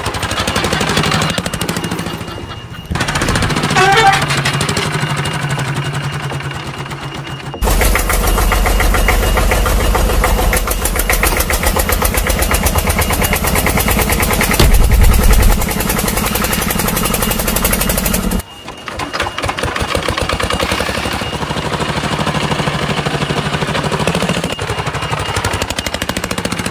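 Small electric motor of a homemade wired toy tractor running, with a fast buzzing rattle. It gets much louder and denser suddenly about a quarter of the way in and drops back just as suddenly about two-thirds through.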